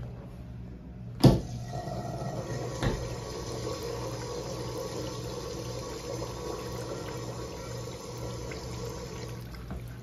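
Briggs Lawton urinal flushing: a sharp clunk about a second in as the flush starts, then water rushing through the bowl for about eight seconds before it shuts off near the end.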